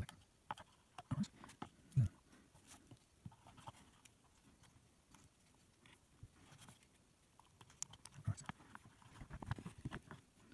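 Handling noises from the black plastic housing of a Panasonic e-bike mid-drive motor being lifted, turned and set against the aluminium motor case: scattered light clicks and knocks, with a dull thud about two seconds in and a busier run of knocks near the end.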